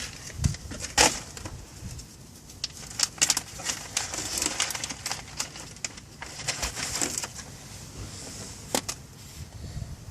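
Irregular clicks, snips and rustles of hands working car wiring, splicing a module's wires into the harness under the dashboard.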